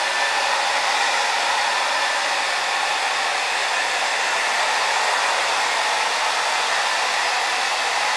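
Handheld hair dryer blowing steadily: an even rush of air with a faint high whine.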